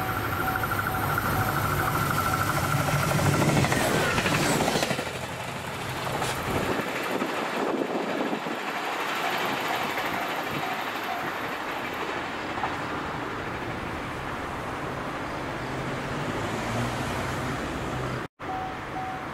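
Japanese level crossing warning bell ringing in a steady repeating ding, with a passing road vehicle's pitch falling about four seconds in, then an approaching train running past on the JR Yosan Line amid traffic noise.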